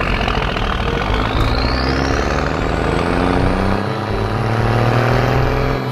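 Cartoon truck engine sound effect: a loud rushing engine noise with a whine that climbs steadily in pitch, stopping near the end, over background music.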